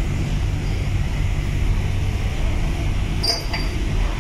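Steady low machinery rumble and hum inside a ferry's enclosed vehicle deck, from the ship's engines and ventilation. A brief high squeak sounds about three seconds in.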